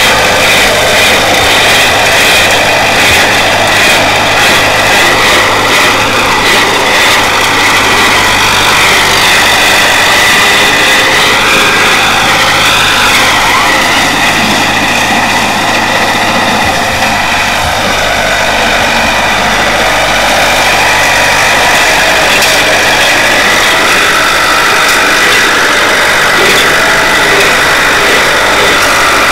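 Ford 5610 tractor's diesel engine running hard under load as the tractor pulls wheelies, its front end lifting off the ground. It runs loud and steady, its pitch rising and falling around the middle.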